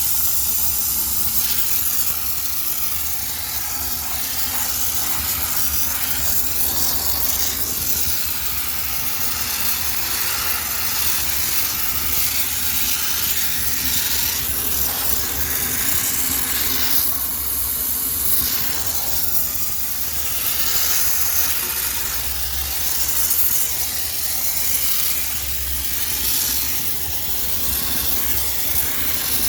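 High-pressure steam cleaner hissing steadily, its strength swelling and easing as the steam jet is played over a washing machine to sterilize it, with a low steady hum underneath.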